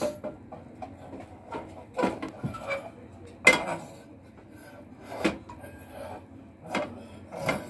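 Frying pan knocking against a gas stove's burner grate as it is handled: about five sharp clunks a second or two apart, the loudest about three and a half seconds in.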